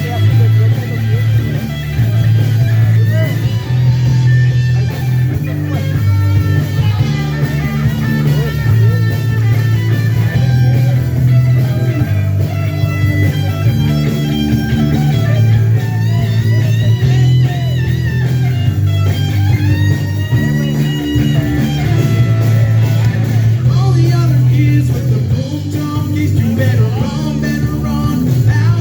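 Live rock band playing: a Les Paul Standard electric guitar over a bass line that changes note every second or so, with some bent guitar notes in the middle.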